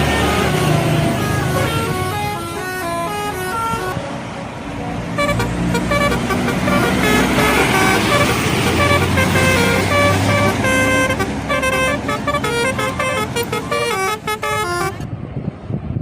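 Bus 'telolet' multi-tone air horns playing quick tunes of short notes that step up and down in pitch, one tune after another, over the rumble of the bus engines and traffic.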